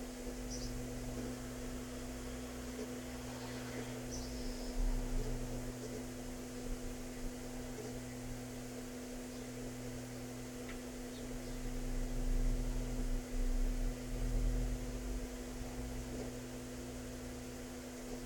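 Steady low electrical hum, with a few louder low rumbles along the way.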